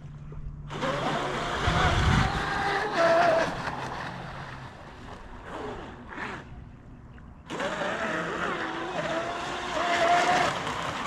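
Radio-controlled jet boat on a 6S LiPo, its electric motor and jet drive running under throttle: a wavering whine over a rushing hiss. It comes on suddenly about a second in, fades out after a few seconds, and comes on again suddenly about seven seconds in.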